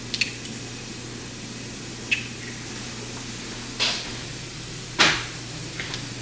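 A handful of short, sharp taps and knocks on kitchenware, about five in all, the loudest about five seconds in, over a steady low hum.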